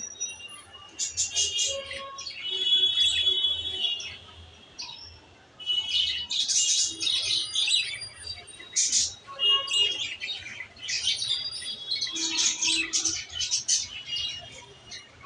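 Small birds chirping and tweeting in rapid, overlapping bursts of high calls and short trills, with a brief lull about five seconds in.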